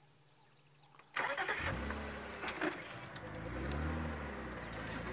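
Open safari vehicle's engine starting just after a second in, then running as the vehicle pulls away, its pitch rising and falling with the throttle.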